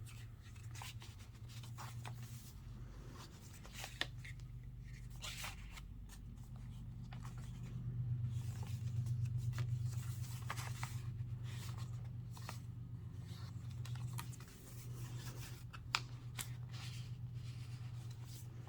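Pages of a handmade junk journal being turned and handled: paper rustling and crinkling, with two sharp clicks, over a steady low hum.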